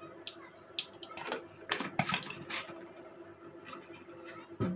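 Oil heating in an aluminium kadai on an induction cooktop: scattered light crackles and ticks, thickest about two seconds in, over a steady low hum.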